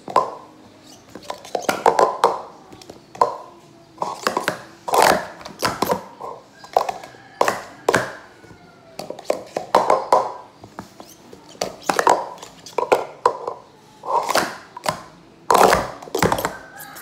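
Green plastic Speed Stacks sport-stacking cups clattering against each other and the mat as they are stacked up and swept down in quick runs, a new run of clicks every second or two.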